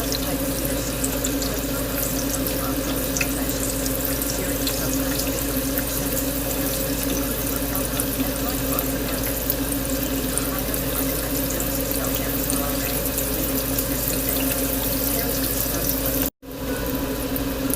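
Zucchini slices sizzling and crackling in hot oil in a frying pan, a steady hiss with a constant low hum underneath. The sound drops out for an instant near the end.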